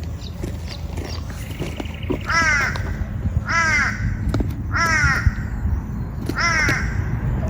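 A crow cawing four times, each call a harsh falling note about a second apart, over a steady low rumble.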